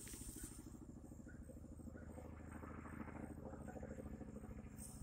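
CH-47 Chinook tandem-rotor helicopter approaching at a distance: a faint, steady low drone with the fast, even beat of its rotor blades.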